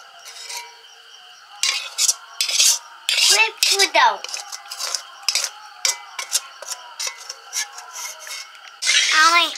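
Steel spoon scraping and clinking against the inside of a metal kadai as thick tamarind chutney is scraped out into a glass bowl: a run of short, irregular scrapes and clicks.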